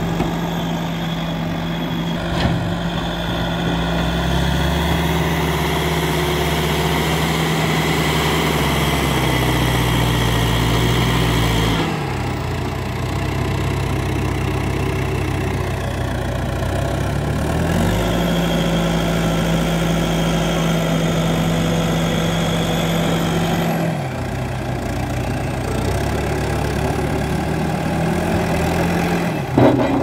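Diesel engine of a 1998 L&T Case backhoe loader running as the machine pushes and scoops soil with its front bucket. The engine note steps up and down in pitch several times.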